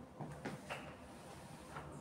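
A few faint, short knocks and scuffs, about four in two seconds: footsteps and handling as a person steps up to a wooden bed base and bends over it.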